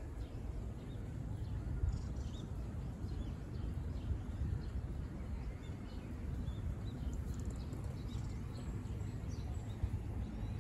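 Steady low background rumble with scattered faint, short bird chirps throughout.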